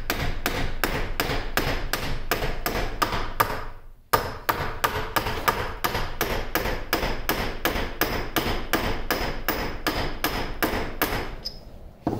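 Rapid, even hammer taps, about four a second, on a steel shaft in a 1950 LeBlond Regal lathe's quick-change gearbox, driving it out. The shaft moves slowly because it is pushing a set of bearings out ahead of it. The taps pause briefly about four seconds in, then resume and stop near the end.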